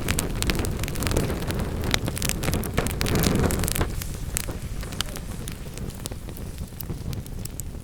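Wood fire in a fireplace crackling, with many sharp pops and snaps over a low rumble of burning that eases off about halfway through.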